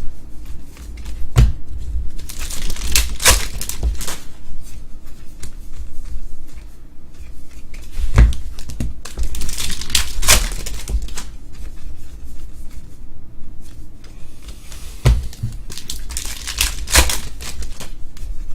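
Foil wrappers of trading card packs being torn open and crinkled, three times about seven seconds apart, each time just after a low knock.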